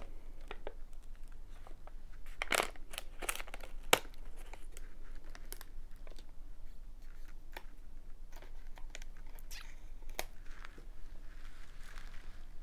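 Scissors cutting open a snack pouch, then the pouch crinkling and crackling as it is handled. The sharpest crackles come two to four seconds in, with softer scattered rustles after.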